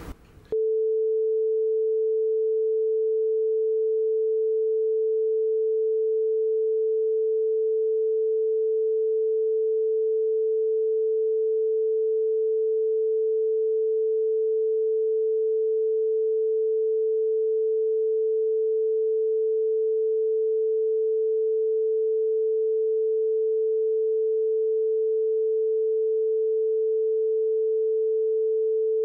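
A single steady pure tone, a censor tone laid over a redacted stretch of the interview recording, cutting in about half a second in and holding unchanged in pitch and loudness.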